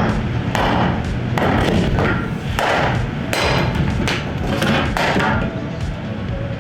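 A run of about eight heavy thuds on wooden 2x4 boards, roughly one every three-quarters of a second, as used lumber is knocked clean for reuse.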